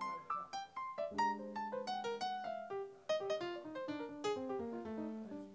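Electric keyboard with a piano sound played solo, chords mixed with quick runs of single notes.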